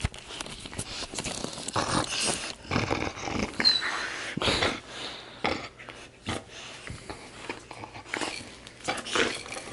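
Dog playing with a plush toy: irregular bursts of mouthing, snuffling and breathing, with short clicks.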